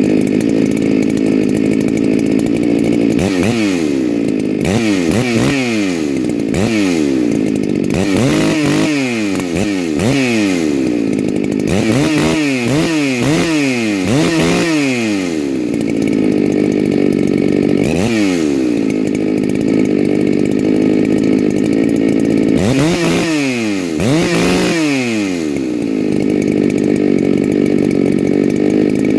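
Farmertec G395xp big-bore two-stroke chainsaw with a homemade muffler running at high revs, its engine speed dropping and climbing back again many times in quick succession, then once more and twice near the end.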